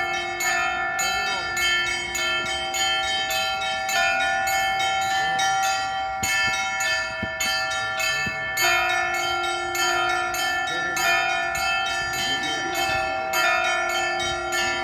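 Church bells ringing: several bells struck in quick succession, a few strikes a second, over their sustained ringing tones. A deeper bell's tone drops out for several seconds near the middle and then comes back.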